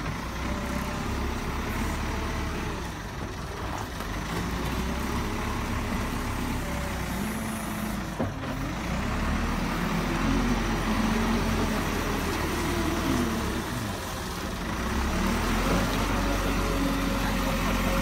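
JCB backhoe loader's diesel engine running under load, its pitch rising and falling again and again as the machine works and moves.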